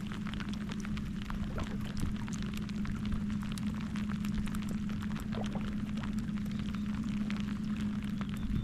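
Rain falling, a dense scatter of small drop ticks over a steady low hum.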